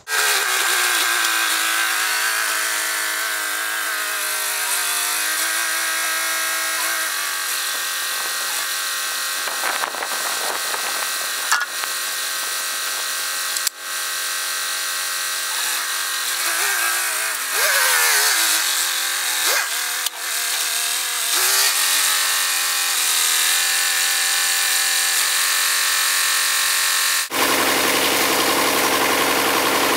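Loader tractor's engine running steadily, its revs rising and falling several times around the middle, with a sudden change in tone near the end.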